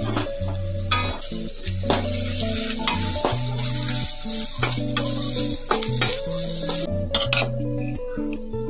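A spoon stirring and scraping grated coconut and tempering sizzling in a stainless steel pan, with a sharp scrape about once a second. The sizzle thins out near the end. Background music with held notes runs underneath.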